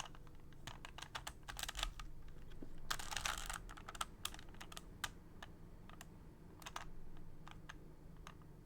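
Original Rubik's Cube being turned by hand: quick plastic clicks and clacks of the layers snapping round, with a dense flurry of turns about three seconds in and sparser single turns after.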